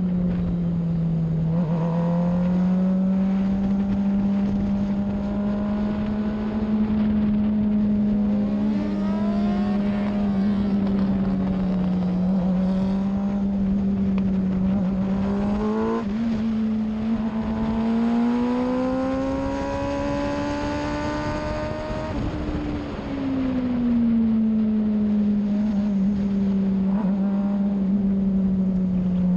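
F1000 open-wheel race car's motorcycle-derived engine running hard at speed, heard onboard. Its note holds mostly steady, climbs for several seconds past the middle and then falls away, with shorter rising and falling engine tones cutting across it about a third of the way in and again around the middle.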